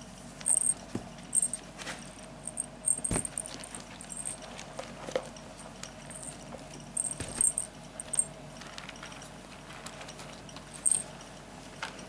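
Young ferret kits squeaking: short, very high-pitched squeaks at irregular intervals, with faint rustling and a knock about three seconds in.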